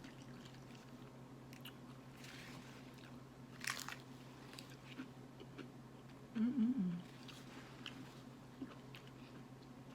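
Close-up chewing with crunchy bites of a hard nacho cheese taco shell, the loudest crunch a little under four seconds in.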